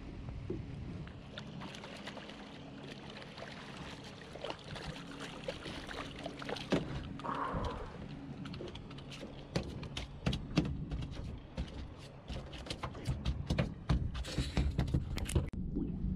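A porgy being landed and flopping on the boat deck: a run of sharp knocks and taps, thickest and loudest in the second half. Under it runs the steady low hum of the electric trolling motor holding the boat in place.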